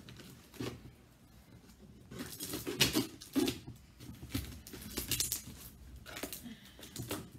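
Rustling and tearing of parcel packaging as a parcel is opened and its contents handled, in several irregular bursts, the loudest around the middle.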